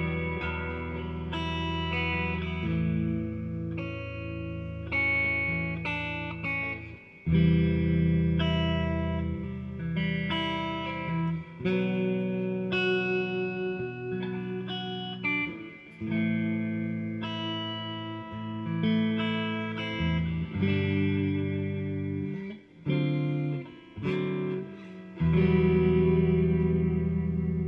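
Electric guitar played through a 1995 Laney GC30V valve guitar amp: a slow, melodic lead with long held notes and chords and short breaks between phrases.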